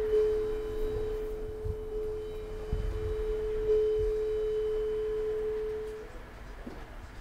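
Metal singing bowl ringing on with a steady, pure two-note hum that swells slightly about four seconds in and dies away about six seconds in.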